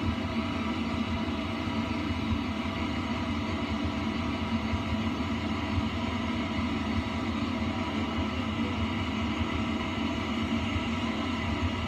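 Passenger train running, heard from on board: a steady rumble.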